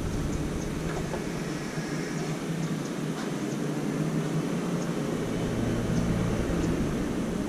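Steady machine-like hum with a few faint ticks; a deeper part of the hum drops out about a second in and returns for a stretch near the middle.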